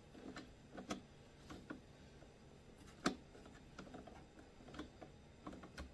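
Light, irregular clicks and taps of small hand tools and plastic and metal blower parts being handled during disassembly, with a sharper tap about three seconds in and another near the end.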